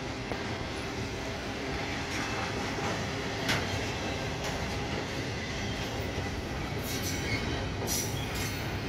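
Intermodal freight train's double-stack well cars rolling past: a steady rumble of steel wheels on rail, broken by a few sharp clicks and clanks as wheels pass rail joints.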